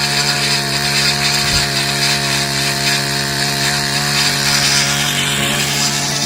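Ryobi RCVK-4250 tiller's 40 cc two-stroke engine running at a steady speed.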